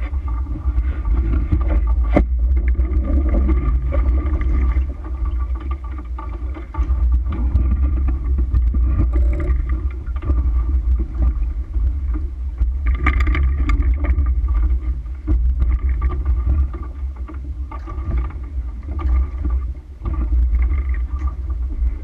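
Wind buffeting the microphone of a camera on a sailboat under way: a loud, deep rumble that swells and eases, with a few light knocks.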